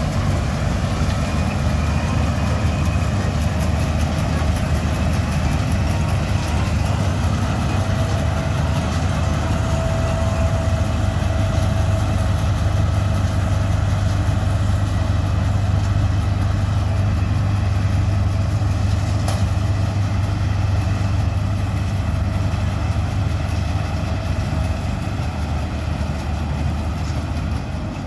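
Punni Grain Cruiser combine harvester running steadily while harvesting soybeans: a continuous diesel engine hum with the threshing machinery.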